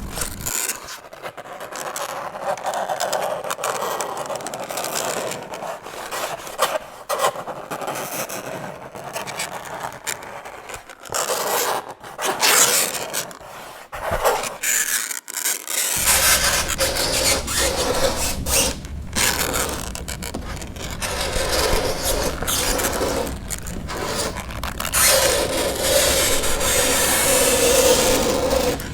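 Fingernails scraping across a chalkboard in long repeated strokes, broken by brief pauses. Some strokes carry a held, grating squeal, most strongly near the end.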